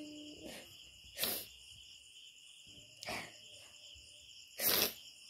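A woman crying: a pitched whimper trails off at the start, then come three short, sharp sniffling breaths about one, three and nearly five seconds in, the last the loudest. Under it all runs a steady high-pitched background trill.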